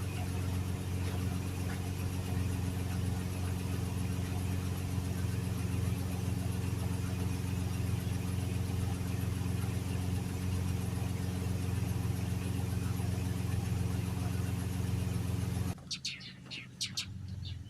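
Pickup truck engine idling steadily. It cuts off suddenly near the end, leaving a few bird chirps.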